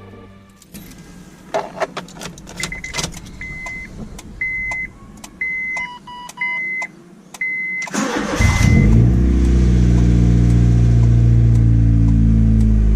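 Clicks and a row of about seven short electronic beeps from the dashboard with the key on. About 8 seconds in, the Honda City Aspire's 1.5-litre i-VTEC four-cylinder cranks briefly and catches, then runs at a loud, steady fast idle through a straight-pipe exhaust with the muffler removed. This is a cold start.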